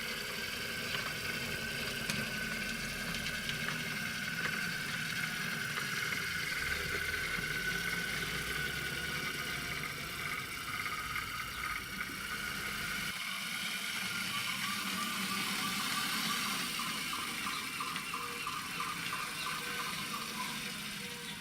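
Model diesel railcar running past on the layout: a steady small electric motor whine with the rattle of wheels on the track, and a run of regular clicking in the second half as it passes over the rail.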